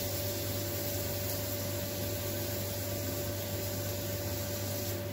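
Water trickling from a watering can onto the hot tip of a forged steel scroll, hissing steadily as the tip is quenched, over a steady low hum.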